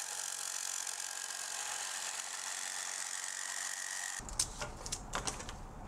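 Corded jigsaw cutting through thin aluminium sheet: a steady, high-pitched rasp that stops about four seconds in, followed by a few light clicks.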